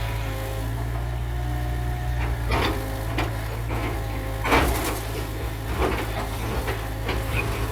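Heavy construction machinery's engine running steadily, with a few sharp knocks, the loudest about four and a half seconds in.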